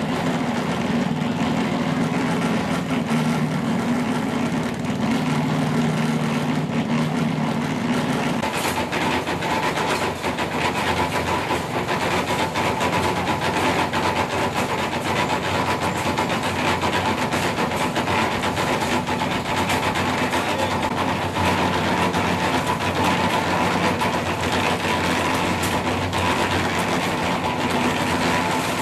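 Small engine of a portable concrete mixer running steadily, its drum turning. The sound changes about eight seconds in, a steady higher hum coming in over the engine noise.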